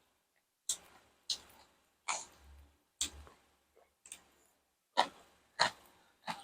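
Close-up chewing of crunchy food, with sharp crisp crunches about once or twice a second and short pauses between bites.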